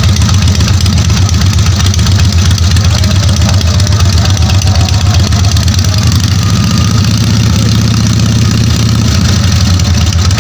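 Harley-Davidson WL's 750 cc flathead V-twin running at a steady idle, brought back to life after decades laid up.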